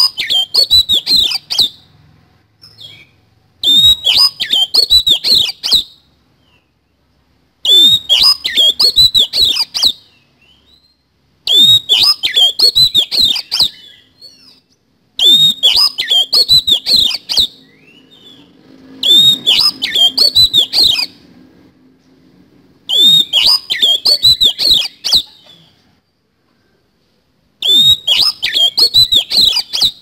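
Oriental magpie-robin (kacer) song: the same rapid phrase of rough fill-in notes, repeated about every four seconds, each burst about two seconds long.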